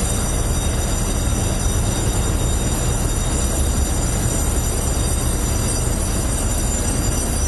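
Steady low rumble of a car ferry's engines running, with a thin, high, steady whine above it.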